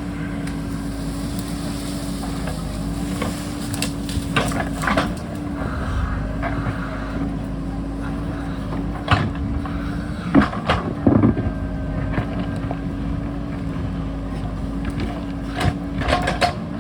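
JCB backhoe loader's diesel engine running at a steady speed while digging rock, with sharp clanks and knocks every few seconds, the loudest a cluster about ten to eleven seconds in.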